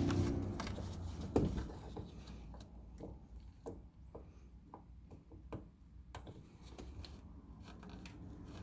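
Faint scattered clicks and rubbing of hard plastic as a hand twists and wiggles the front turn-signal bulb socket in the headlight housing, over a low steady hum.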